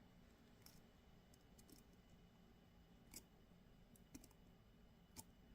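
Near silence with a few faint, sparse clicks, about one a second, from jewellery pliers and wire as a wrapped wire end is tucked in.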